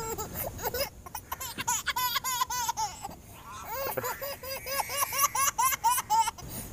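A baby girl laughing hard in quick, rhythmic high-pitched ha-ha-ha pulses, about four a second. There is a short pause about three seconds in, and the laughter stops shortly before the end.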